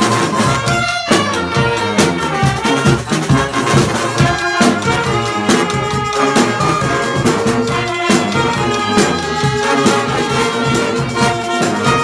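A live brass street band playing: saxophones, trumpets and a sousaphone over marching drums, with a steady beat.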